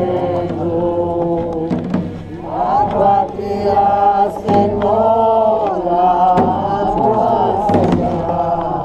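A group of voices singing a slow devotional chant, with a hand-held skin drum beaten with two wooden sticks underneath, its beat hoarse and rough.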